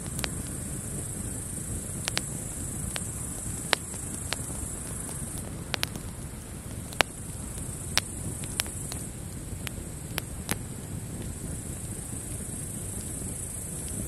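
Wood campfire crackling, with sharp pops scattered irregularly a second or so apart, the loudest about halfway through, over a low steady rumble. Behind it a steady high-pitched chorus of grasshoppers.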